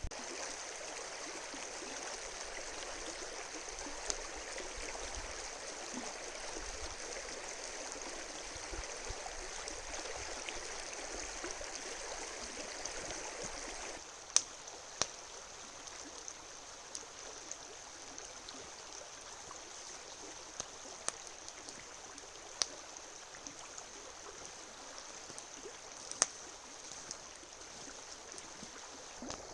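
River water flowing steadily, an even rushing sound; about halfway through it drops a little quieter, and after that a few sharp clicks sound here and there.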